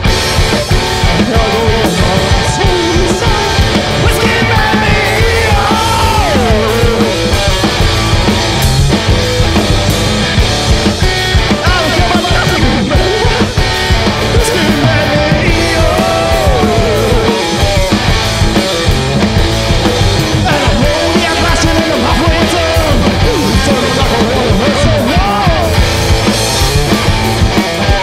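Live garage-punk band playing loudly: guitar and drum kit keep a steady beat while a lead line of sliding, bending notes runs over the top.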